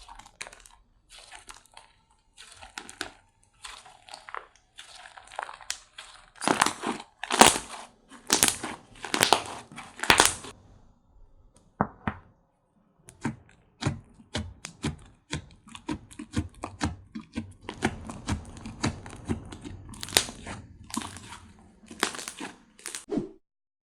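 Slime being squished, stretched and pressed by hand, giving dense irregular crackling and popping. The sound is loudest in the middle, pauses briefly a little before halfway, then turns into a run of quick pops and stops abruptly just before the end.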